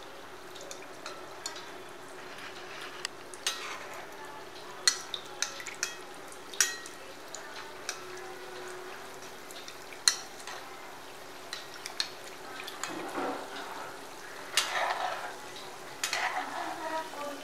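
Samosas deep-frying slowly in oil in a steel kadai over a low flame: a steady soft sizzle with scattered sharp pops and crackles. A metal slotted spoon stirs and taps against the pan now and then, more busily near the end.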